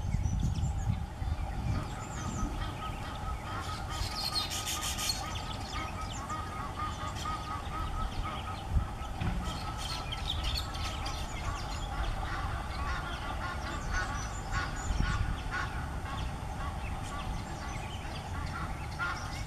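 Waterfowl honking over and over, with high bird chirps and chatter over the honks, busiest about four seconds in. An uneven low rumble, like wind on the microphone, runs beneath.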